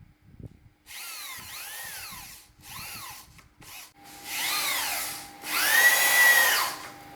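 Power drill run in about five short bursts, its motor whine rising and falling in pitch as the trigger is squeezed and let go; the last burst, near the end, is the longest and loudest.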